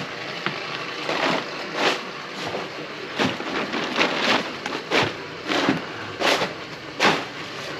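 A series of footsteps, about one every two-thirds of a second.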